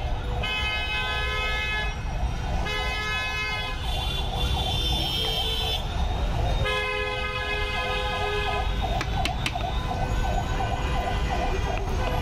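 Street traffic: vehicle horns sounding in long held blasts, one after another, over a siren wailing in a fast warble. A few sharp clicks come in the second half.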